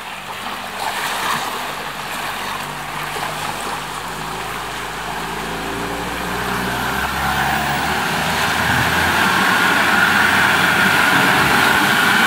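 Four-wheel-drive's engine labouring and revving steadily higher as it pushes through a flooded mud hole, with the wash of water around it. It grows louder over the last few seconds.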